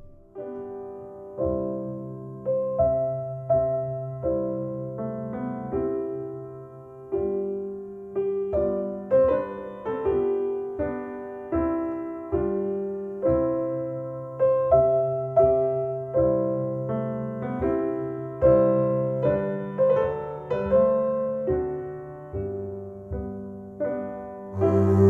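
Piano music played back over Paradigm Persona 7F loudspeakers driven by an Accuphase E-800 Class A integrated amplifier: a steady run of struck notes over sustained low notes.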